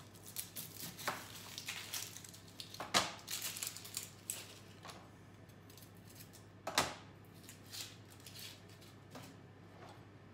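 Kitchen knife cutting and peeling an onion on a cutting board: irregular taps and scrapes, with a sharp knock about three seconds in and another near seven seconds.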